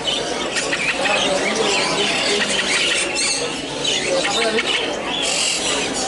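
Caged birds squawking and squealing with short, sharp calls over a steady background of voices.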